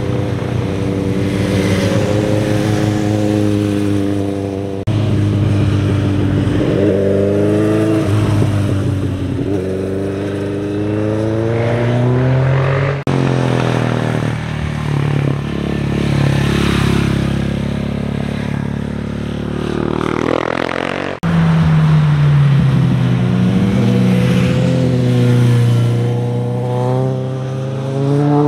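Motorcycle engines passing through a tight bend, their pitch rising and falling as the bikes slow for the curve and accelerate out of it. The sound cuts abruptly three times between passes.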